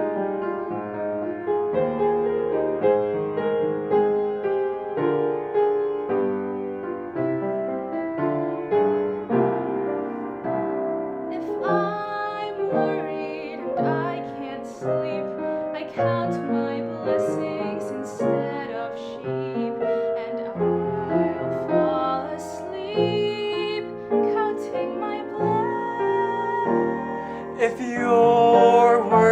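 Piano playing a slow, gentle instrumental interlude of a ballad.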